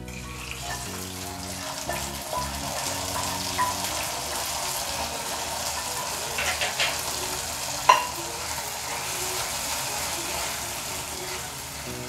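Hot ghee tempering with cashews, raisins and grated coconut sizzling as it goes into a pot of cooked sweet pongal, then stirred in with a metal ladle. Sharp clinks of the ladle against the steel pot, the loudest about eight seconds in.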